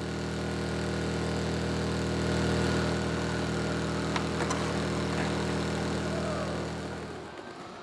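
An engine idling: a steady low hum that fades in at the start and fades out near the end, with a couple of faint clicks midway.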